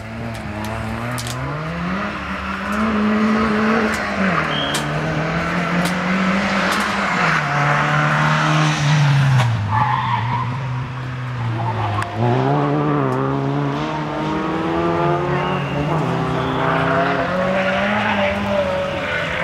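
Renault Clio RS rally car driven hard through a stage: the engine revs climb and fall repeatedly through gear changes and braking, with a sharp drop about twelve seconds in, over tyre noise with a few brief tyre squeals.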